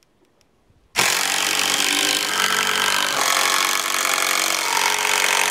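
Cordless drill running under load, driving a fastener into a 2x4 board. It starts sharply about a second in and then runs steadily with a whining motor pitch.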